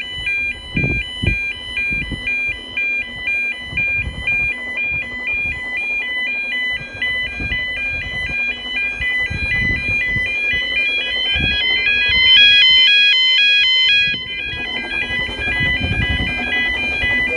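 UK level crossing warning alarm sounding its rapidly alternating two-tone yodel while the road lights show amber, then red: it warns that a train is approaching and the road is closing. It grows louder for a couple of seconds near the end.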